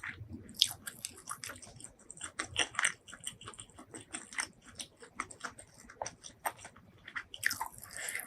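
Close-miked chewing of food, with irregular wet clicks and smacks of the mouth and a few louder bites.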